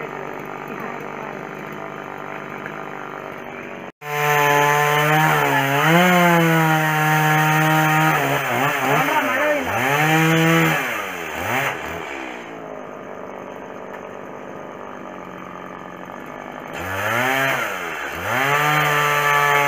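Chainsaw engine running. From about four seconds in it is revved hard, its pitch repeatedly dipping and recovering as the chain is loaded in the wood. It then settles to a lower steady run before revving and dipping again near the end.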